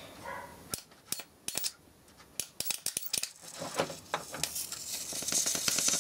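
High-voltage arc from a flyback transformer driver: irregular sharp snaps and clicks of sparks at first, thickening about five seconds in into a continuous crackling, hissing arc drawn from the high-voltage lead.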